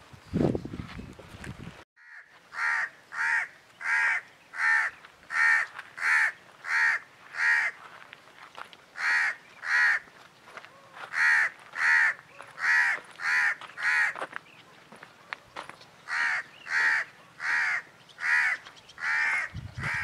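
A crow cawing over and over, about one harsh call every 0.7 seconds, in runs of six to eight calls with short pauses between. Before the calls start, a low rustling noise cuts off suddenly.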